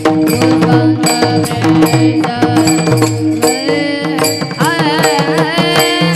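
Marathi devotional bhajan music between sung lines: a pitched melody over a steady drone, with a drum and percussion keeping a steady beat.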